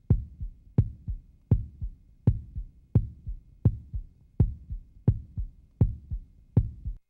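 A lone thumping beat from the film's soundtrack, about eighty a minute: each sharp, strong thump is followed by softer low ones, with no melody over it. It cuts off suddenly near the end.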